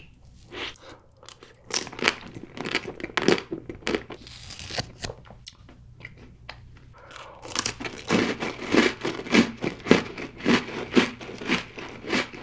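Close-miked eating sounds: biting into and chewing chocolate cake, then crunching and chewing an Oreo cookie spread with Nutella, with a run of crisp crunches in the second half.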